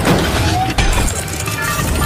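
Movie-style robot transformation sound effects: a dense run of mechanical clanks, clinks and whirs as a truck turns into a robot, layered over an orchestral score, with a sharp metallic hit at the start and another about a second in.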